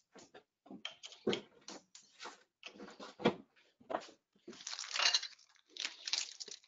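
Kitchen handling noises: a run of short, irregular clatters and rustles of utensils and plastic packaging being handled, loudest about five seconds in.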